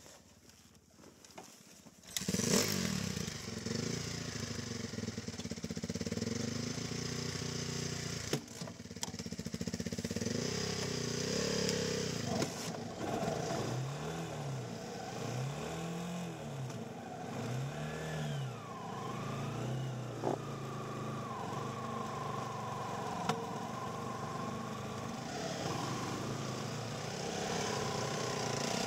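Quad bike engine starting about two seconds in, then running stationary with its pitch rising and falling as the throttle is blipped, three quick revs in a row midway. In the later part a second engine note rises and falls, a dirt bike coming up the track.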